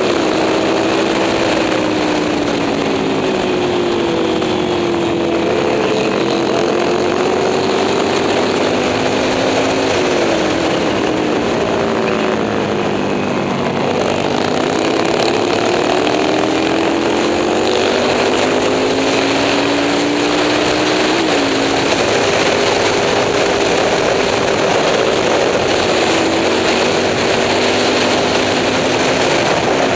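Moto Morini 350 V-twin racing motorcycle engine at racing revs, its pitch climbing and falling as it is ridden hard. Sharp drops in pitch about a third of the way in and again about two-thirds in mark gear changes.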